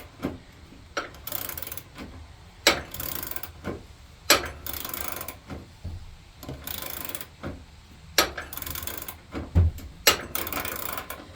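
Socket ratchet wrench clicking in repeated half-second strokes, about one every one and a half seconds, as a loosened idler-pulley bolt is backed out on a riding mower deck. Sharp single clicks fall between the strokes, with a dull knock near the end.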